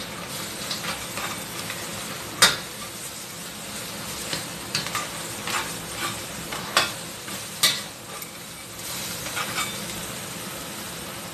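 Crab pieces sizzling in a stainless steel frying pan as a metal spatula stirs them, scraping and knocking against the pan again and again over a steady hiss, with the loudest knock about two and a half seconds in.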